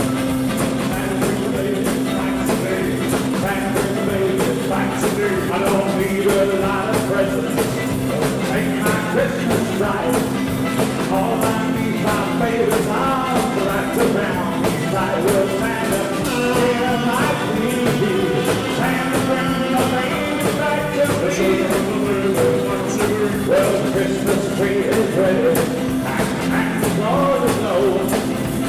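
A rock and roll band playing live: electric guitars over a drum kit, with a steady beat.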